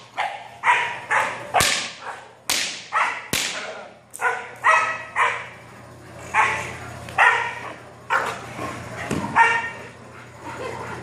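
Young Belgian Malinois barking repeatedly at a decoy during protection bite work, about a dozen sharp barks in quick runs with a short pause near the middle.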